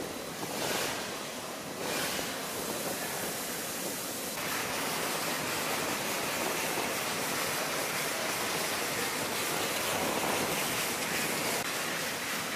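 Water jet from a robotic wash arm's nozzle spraying onto an F-16's skin: a steady hiss that turns brighter about four seconds in.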